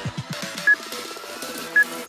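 Electronic workout music with its beat dropped out, and two short, high beeps about a second apart: a countdown timer ticking off the last seconds of a rest interval.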